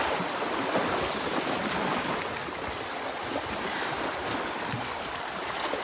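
Small sea waves washing and splashing against shoreline rocks, a steady wash of surf.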